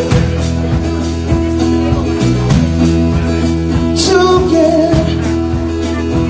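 Live band playing an instrumental passage: acoustic guitar and bass over a drum kit keeping a steady beat.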